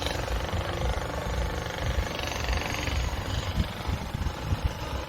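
Wind buffeting the microphone: an uneven low rumble in gusts, with no clear source behind it.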